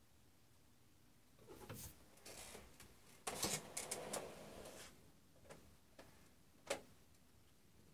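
Soft scuffling and small knocks as a Siamese cat scrambles up onto a metal-framed chair with a padded seat, followed by a few short sharp clicks, the sharpest near the end.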